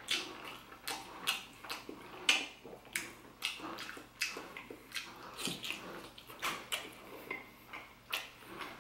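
Close-up wet mouth sounds of eating a steamed soup dumpling (xiao long bao): biting, slurping and chewing, an irregular string of sharp wet smacks, about one or two a second.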